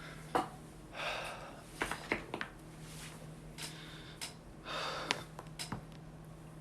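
Joints cracking during chiropractic adjustments: a run of sharp pops, some in quick clusters of three or four, with two breathy exhales.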